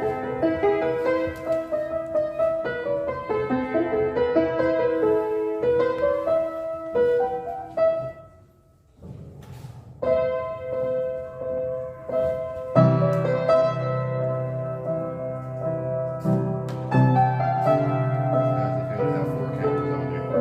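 Piano-style keyboard music: a melody over chords, a short break about eight seconds in, then deep bass notes joining about thirteen seconds in.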